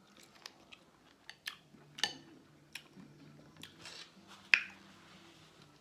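Close-miked eating sounds: mouth smacking and chewing, heard as an irregular scatter of sharp wet clicks and smacks, the loudest about four and a half seconds in.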